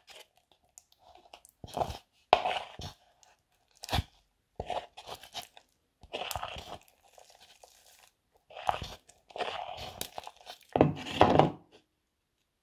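Sticky mouse-trap glue mixed with borax glycerin, stirred and pulled with a metal spoon in a plastic bowl. It gives irregular short sticky, crackling noises with pauses between them, loudest near the end. The mixture is just starting to firm up but is still very sticky.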